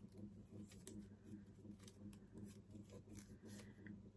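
Near silence: faint, scattered rustles and small clicks of a paper strip and a wooden stick being handled, over a low steady hum.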